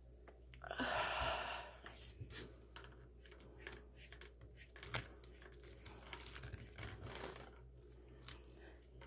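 Plastic shrink wrap torn open on an album package in one loud rip about a second in, followed by scattered crinkling, rustling and light clicks as the wrapping and packaging are handled.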